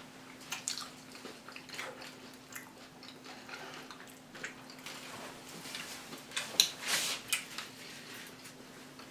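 Close-up eating sounds of loaded shrimp and steak nachos: scattered chewing with small crunches and mouth clicks, loudest in a cluster about two-thirds of the way through, over a faint steady hum.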